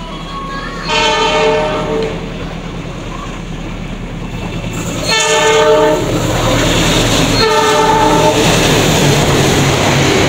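Express passenger train's locomotive horn blowing three times, about a second each, as the train approaches. The train then passes close by at speed, a loud steady rush with the clatter of wheels on the rails.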